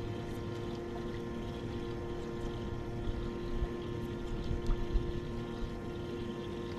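Small electric motor aboard a bass boat running with a steady hum at several fixed pitches, over a low rumble. Two short low bumps come about five seconds in.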